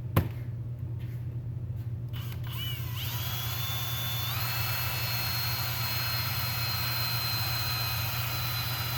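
A sharp click just after the start, then a cordless drill spins up about three seconds in, steps up to a higher speed a second later and runs steadily as a high whine.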